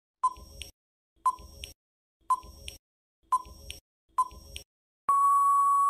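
Quiz countdown timer sound effect: five short beeps about a second apart, one for each second of the count, then one long steady beep as the time runs out.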